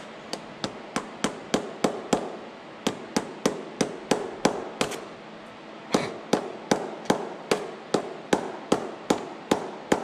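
Hammer striking a rod set in a round-baler belt's laced splice, about three sharp blows a second in three runs with short pauses, driving a new lacing rod through to push out the old one, which is broken into pieces.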